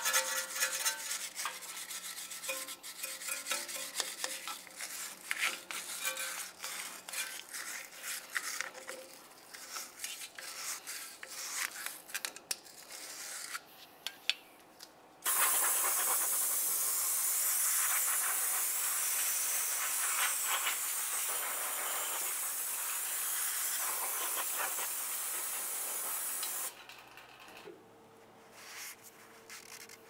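A hand wire brush scrubs rust and grime off a steering knuckle's bearing bore in rapid rasping strokes. About fifteen seconds in, an aerosol cleaner sprays in a loud steady hiss for about eleven seconds and then cuts off, followed by faint rubbing of a rag.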